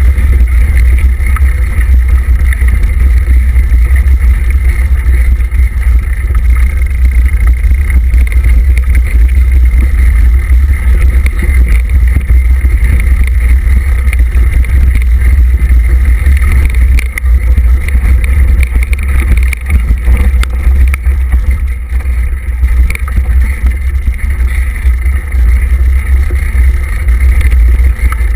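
Loud, steady low rumble of wind buffeting the microphone of a camera riding on a mountain bike, mixed with the rolling and rattling of the bike over a rough dirt trail.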